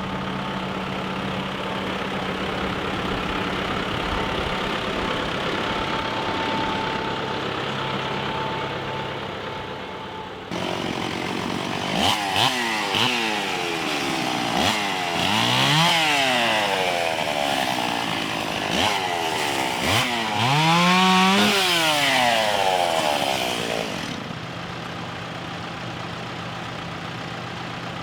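Chainsaw engine running steadily, then from about twelve seconds in revved up and down repeatedly, its pitch rising and falling, before dropping back to a steady run near the end.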